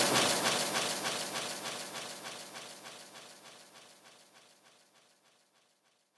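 Background music with a fast, even beat fading out, dying away to nothing about four seconds in.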